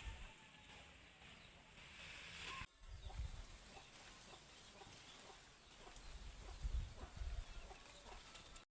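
Faint outdoor rural ambience with chickens clucking, over a steady high hiss; it cuts to silence near the end.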